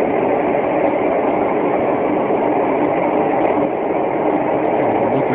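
A loud, steady drone with a faint hum of tones in it, unchanging throughout: the unexplained noise heard at night, off and on for hours, whose source is unknown.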